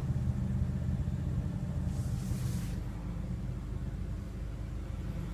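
Low steady rumble of the 2015 BMW M6 Gran Coupe's twin-turbo V8 idling, heard from inside the cabin, with a brief hiss about two seconds in.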